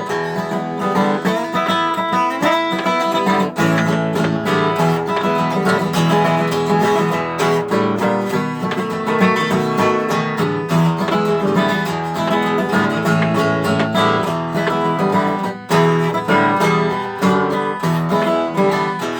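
Guitar played with a pick, an instrumental country-style break of picked and strummed notes with no singing.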